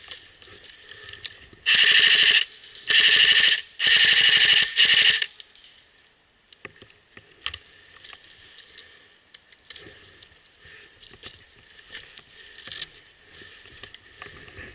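Airsoft rifle firing four short full-auto bursts in quick succession, each a rapid stream of shots, about two seconds in. Then faint handling clicks and rustling.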